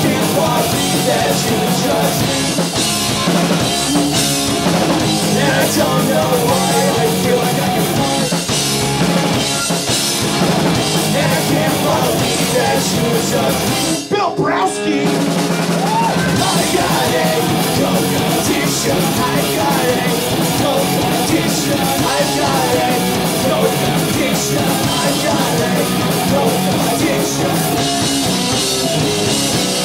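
Punk rock band playing live, with amplified electric guitars and a drum kit, the song breaking off briefly about halfway through before coming back in.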